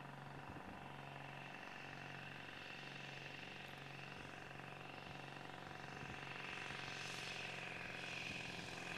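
Light aircraft engine droning faintly in the distance, growing louder over the last few seconds as the plane approaches.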